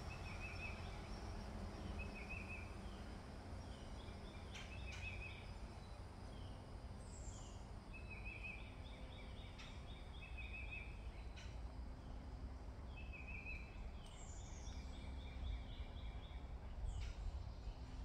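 Songbirds singing in the trees: short trilled phrases repeated every second or two, with brief higher notes and a few down-slurred whistles. A steady low rumble lies underneath, and there are a few faint clicks.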